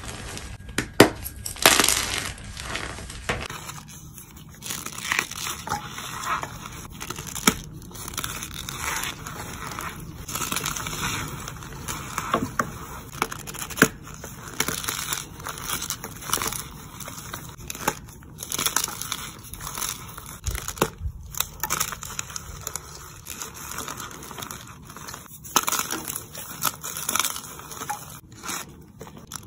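Hands squeezing and crushing gym chalk blocks packed in cornstarch. The cornstarch squeaks and crunches, and the chalk crumbles, in repeated irregular squeezes.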